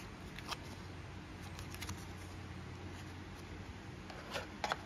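Faint clicks and taps of a phone box's card insert and plastic tray being handled, with a quick cluster of sharper taps near the end, over a steady low hum.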